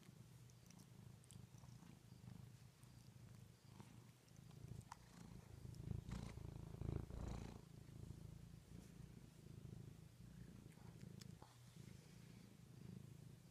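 A domestic cat purring steadily and softly, with a louder rustle of movement about halfway through.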